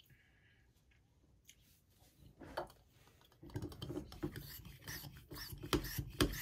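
A hand working the stopper in the neck of a wine bottle: rubbing and scraping that starts about three and a half seconds in and turns into a quick run of rasping strokes, about three a second, near the end.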